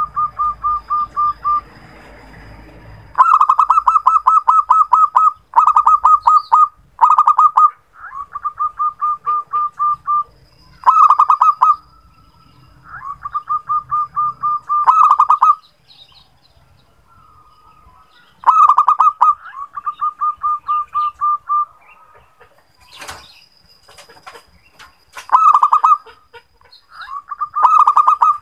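Zebra dove (perkutut) song: about ten runs of rapid, evenly spaced staccato coo notes, each run lasting one to two seconds, with short pauses between. A single sharp knock comes a little past two-thirds of the way through.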